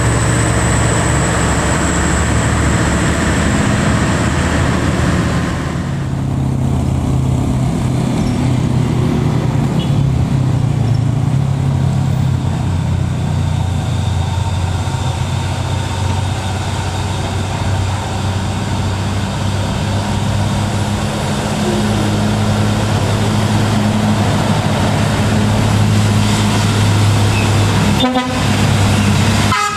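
Heavy diesel truck engines pulling uphill. First comes the Tadano TG-500E crane truck, then, after a change about six seconds in, a loaded Isuzu Giga truck whose engine grows louder as it climbs closer.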